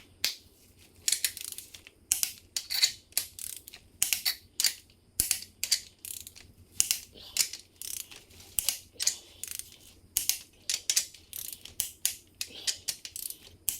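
Torque wrench ratcheting in repeated short strokes, about one to two a second, as bolts are brought up to 70 ft-lb on the crankshaft install of a 5.7 Hemi.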